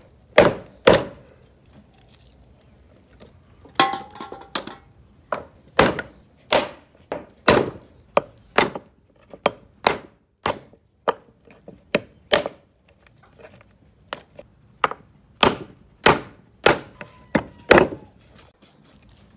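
Chinese cleaver chopping through lamb bones and a rack of lamb ribs on a thick wooden chopping board. About two dozen sharp chops come mostly one to two a second, with a pause of a few seconds near the start.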